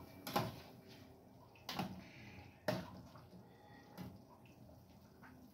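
Metal ladle stirring stew in a stainless steel pan, knocking against the pan four times.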